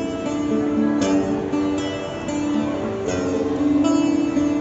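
Guitar playing picked chords, each note left to ring, with a new chord struck about every second or two.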